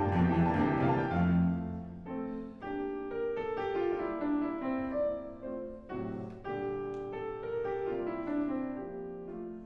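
Background instrumental music led by a piano playing separate notes in a calm, classical style.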